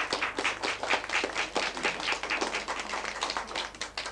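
Audience applauding: many hands clapping densely, stopping near the end.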